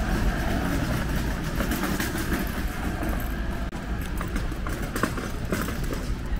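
Traffic noise on a wet city street: a steady rumble of vehicles and tyre hiss, with scattered short sharp taps.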